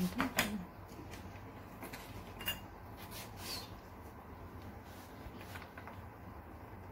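Plastic jug of a Kenwood blender being lifted off its base and handled, giving a few light knocks and clicks in the first few seconds, the clearest about two and a half seconds in, before the thick milk mixture is poured out.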